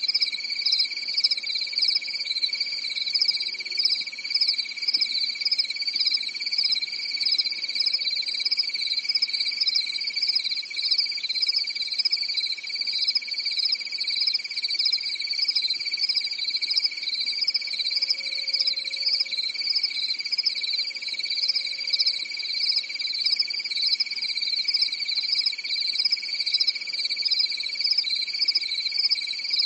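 Crickets chirping in a continuous chorus: a steady high trill with a higher, rapidly pulsing chirp over it that never stops.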